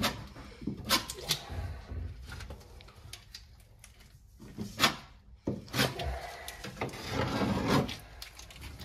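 Irregular knocks, scrapes and rubbing from hand work on a fibreglass boat hull, with a few sharp knocks near the start and around the middle.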